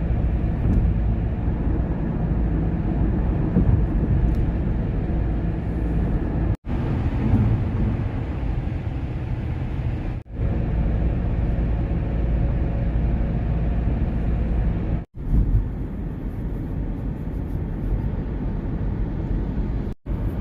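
Steady low rumble of motor-vehicle noise, broken four times by a momentary drop-out to silence.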